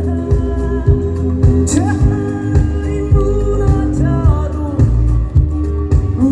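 A male pop singer singing live over backing music, with a steady bass-and-drum beat under the vocal melody.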